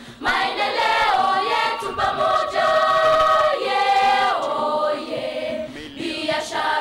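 A choir singing, with long held notes that shift from pitch to pitch.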